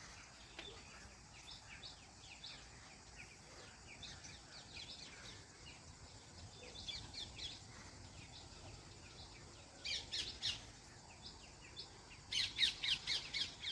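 Birds chirping: scattered short, high calls, with quicker and louder runs of chirps about ten seconds in and again near the end.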